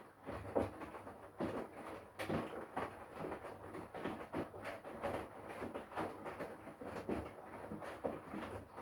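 Front-loading washing machine with its drum turning: laundry and soapy water slosh and flop against the drum in irregular swishing thumps, several a second, over a low motor hum.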